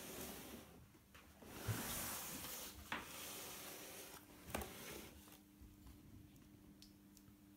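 Faint rubbing and three soft knocks as a cardboard toy box is handled and turned, then near quiet with a faint low hum.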